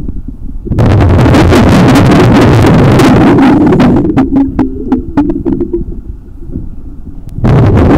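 Loud rushing rumble of air bubbles recorded underwater, in two long surges with a quieter gap between them, in the rhythm of a diver's scuba exhalations. In the quieter gap there is a quick run of sharp clicks.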